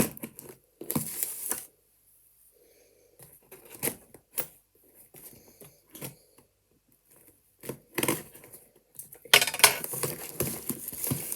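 Parcel packaging being torn and crinkled open by hand, in irregular bursts with short pauses, busiest and loudest near the end.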